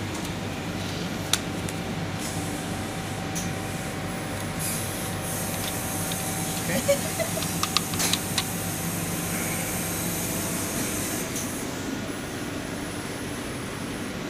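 Steady room hum of lab equipment and ventilation, with a sharp click just over a second in and a brief cluster of light clicks and taps about halfway through as plastic test strips are pressed into a plastic incubation tray.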